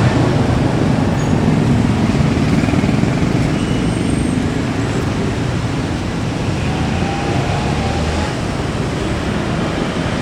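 Loud, steady rumble of vehicles and traffic with a low engine hum, easing slightly toward the end.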